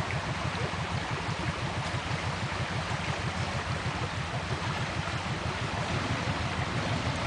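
Swollen, fast-flowing stream rushing steadily, with a low rumble underneath.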